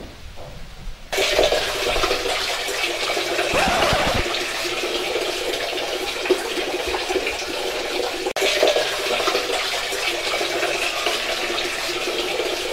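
Steady rush of running water from a tap in a small tiled bathroom, starting about a second in and briefly breaking off a little past the middle.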